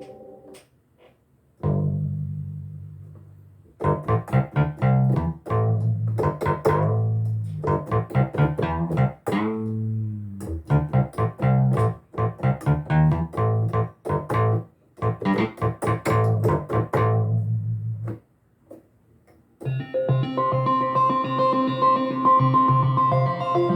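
Arturia Analog Lab V vintage synthesizer presets played on a keyboard: a held low chord, then a fast run of short plucked-sounding notes over a bass line, with a pitch bend about ten seconds in. After a short pause a brighter, sustained chord patch comes in near the end.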